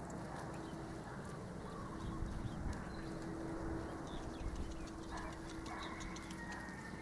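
Faint hoofbeats of an Arabian horse cantering on the arena's dirt footing, soft irregular thuds, with a steady low hum underneath.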